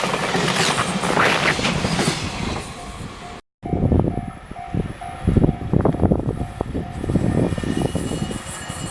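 A freight train running over a level crossing: loud rolling noise, then, after a brief dropout about three and a half seconds in, wheels knocking over the rail joints while a crossing bell rings in short repeated strokes.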